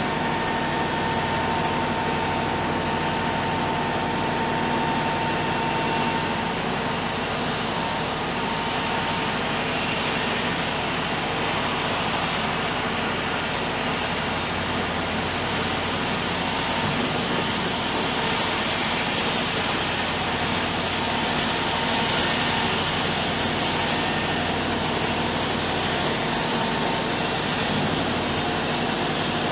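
Heavy construction machinery running steadily, a constant diesel engine drone with a faint high whine that fades out after the first several seconds.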